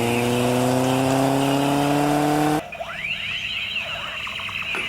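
A vehicle engine revving, its pitch climbing slowly, cut off abruptly about two and a half seconds in. It is followed by a run of quieter, quick rising and falling squeal-like sweeps.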